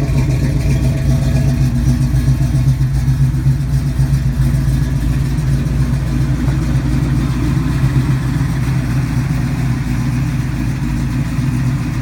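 Crate motor with powder-coated headers in a 1986 Chevy C10 pickup, idling steadily.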